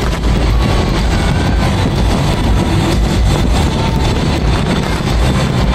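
Continuous barrage of fireworks: rapid, overlapping bangs and crackles that blend into a heavy low rumble.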